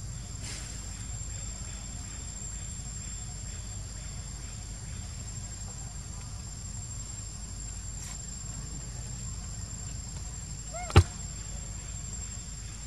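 Outdoor forest ambience: a steady high insect drone over a low rumble, broken once about eleven seconds in by a short, sharp, loud click.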